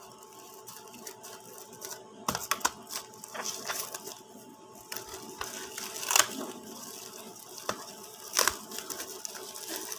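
Plastic packaging being snipped with scissors, then crinkled and pulled open by hand: irregular crackles and sharp snaps of plastic film and bubble wrap, loudest about six and eight and a half seconds in.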